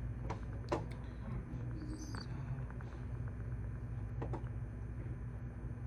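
A few scattered computer keyboard key clicks, the loudest just under a second in and another about four seconds in, over a steady low hum. A brief high squeak comes about two seconds in.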